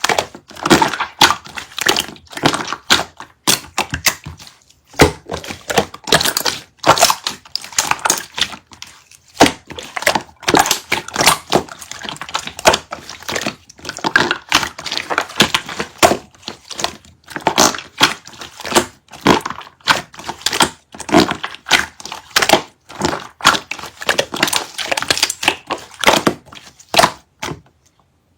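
Slime being squished and pressed by hand, giving a rapid, irregular run of crackling pops and clicks.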